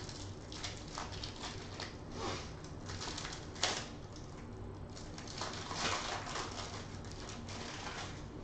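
Foil wrapper of a trading-card pack crinkling and tearing as it is opened by hand, a run of irregular crackles with one sharper crackle about three and a half seconds in.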